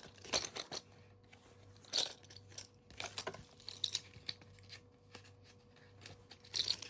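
Small plastic packaging crinkling and crackling as it is handled, in short irregular bursts, the sharpest about two seconds in and near the end.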